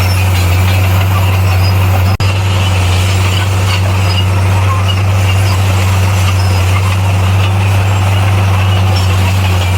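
Heavy diesel engine of a bulldozer running steadily at working revs, a constant deep drone with a hissing upper layer, broken by a split-second dropout about two seconds in.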